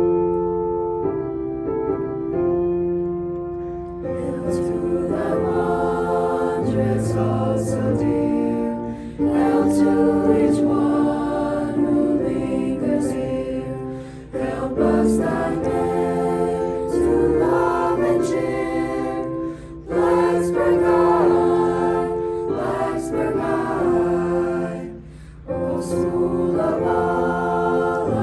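A choir singing with piano accompaniment. The piano plays alone at first, the voices come in about four seconds in, and they sing in phrases of roughly five seconds with short breaths between them.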